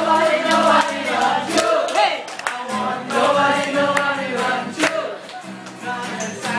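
Several voices singing together to a strummed acoustic guitar.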